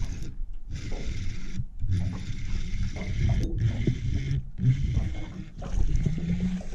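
Wind buffeting the microphone: an irregular low rumble with handling noise, heard while a hooked bass is being brought in.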